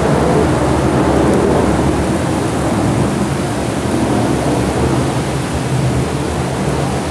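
Heavy rain and strong gusting wind of a thunderstorm, a loud steady rushing noise.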